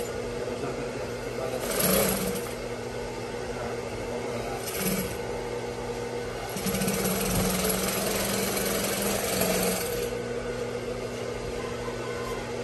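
Juki industrial sewing machine stitching in short runs: a brief burst about two seconds in, another about five seconds in, then a longer run of about three and a half seconds. A steady hum sounds between the runs.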